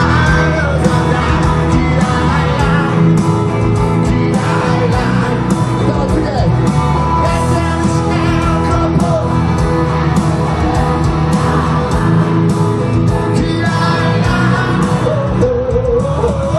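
Live concert: a male pop singer sings into a microphone over loud amplified music with a steady drum beat, heard from within the crowd.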